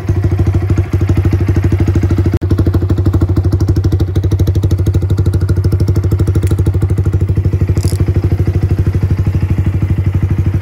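Yamaha R15 V3's single-cylinder four-stroke engine idling steadily, a rapid even pulsing.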